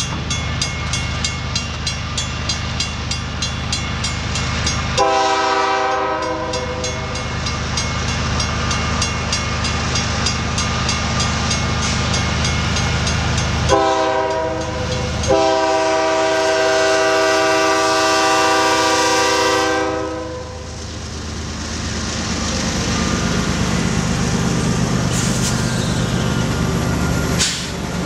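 Canadian National diesel freight locomotives sounding their air horn for a level crossing: one blast about five seconds in, then a short blast and a long one of several seconds, over the steady rumble of the engines and wheels as the lead units come up to the crossing and pass. In the first seconds there is a fast, even ringing of the crossing bell.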